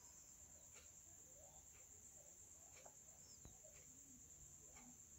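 Near silence: faint room tone with a steady high-pitched hiss and a few faint ticks.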